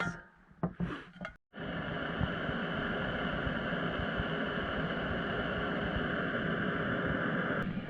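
Small gas canister camping stove burning with a steady hiss, starting about a second and a half in after a few brief handling sounds.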